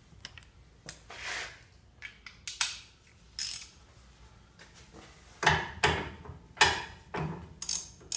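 Hand ratchet and socket clicking on a tie rod end's castle nut, worked in short strokes to break the nut loose. The strokes are faint at first and come louder and quicker, about two a second, from about five seconds in.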